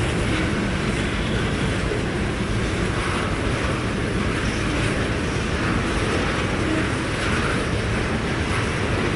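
Freight train cars rolling past on the rails: steady wheel and rail noise with no horn.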